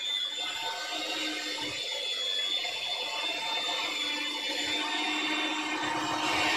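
Electric hand mixer with dough hooks running steadily as it kneads dough, a constant motor whine.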